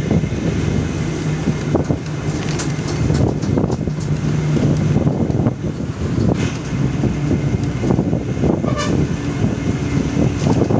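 Vehicle engine running steadily with road and wind noise while driving along a road, its low drone shifting slightly in pitch.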